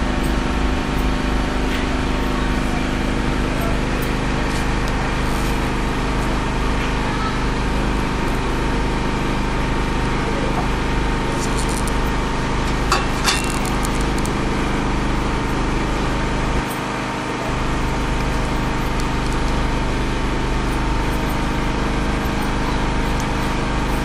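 Steady running drone of a generator engine, holding an even pitch throughout. A couple of sharp clicks sound about halfway through.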